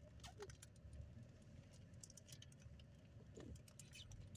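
Faint rain pattering, with scattered drops ticking irregularly over a low hum.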